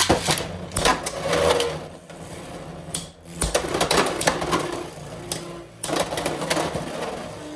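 Beyblade X spinning tops, Unicorn Sting and Phoenix Wing, battling in a plastic stadium: a fast clatter of plastic-and-metal tops grinding and colliding, with sharp knocks scattered through it.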